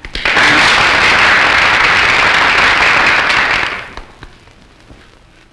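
Crowd applauding: the clapping sets in right away, holds steady, and dies away about four seconds in.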